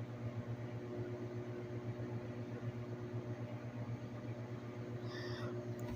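Hamilton Beach microwave oven running: a steady low hum with a faint hiss.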